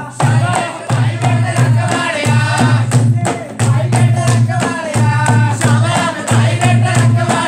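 Punjabi folk song for giddha: women singing a melody over a quick, steady dhol and dholak beat with hand clapping and a low, pulsing bass.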